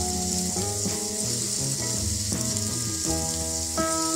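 Food sizzling in a frying pan, a steady hiss, with guitar music playing over it.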